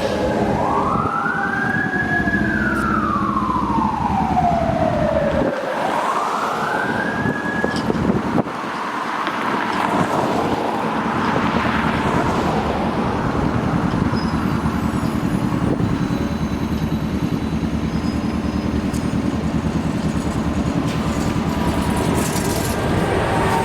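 An emergency vehicle's wailing siren, sweeping up and down twice in the first several seconds, then giving way to a steady rumble of traffic with a low engine hum.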